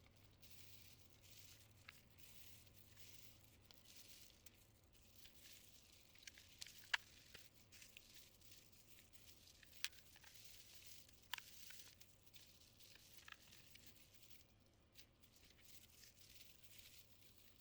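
Quiet hands-on work on a mechanical keyboard's parts: a faint rustling, scraping noise broken by a few sharp plastic clicks, the loudest three spread through the middle.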